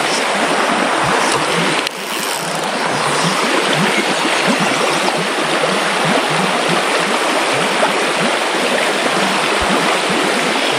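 Trout stream running over a riffle, a steady rushing of water, with a brief dip in level about two seconds in.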